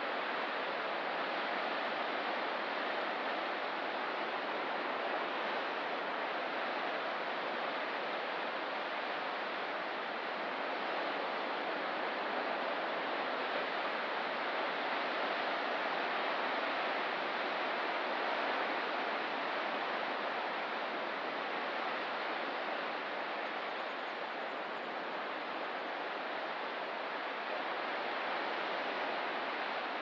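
Ocean surf: a steady, even rushing wash of the sea, with no separate wave breaks standing out.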